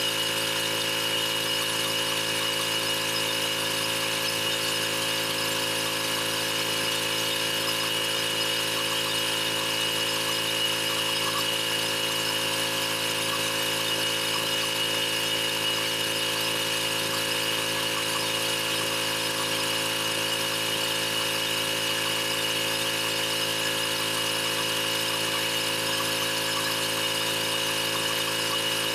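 Pressure washer running steadily: a constant machine hum with a hiss over it, holding one pitch and level throughout.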